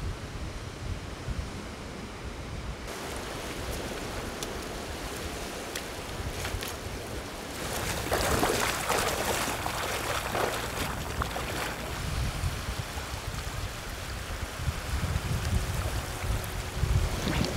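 Sea surf washing over a rocky shore, with wind buffeting the microphone as a low rumble. A louder wave wash swells about eight seconds in and fades after a few seconds.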